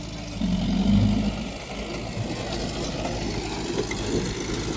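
Diesel engine of heavy earthmoving machinery running steadily, with a short louder rise in pitch about half a second in.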